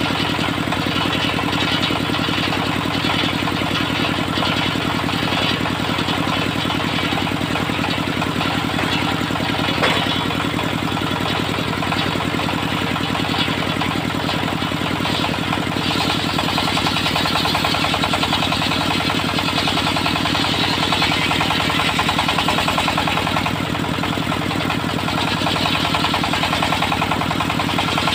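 Engine of a homemade circular sawmill running steadily. A little past halfway it grows brighter and slightly louder, with more high hiss.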